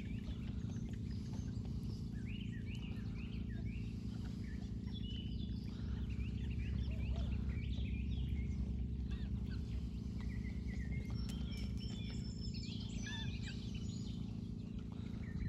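Farm fowl calling, with many short, high chirping calls scattered throughout, over a steady low hum.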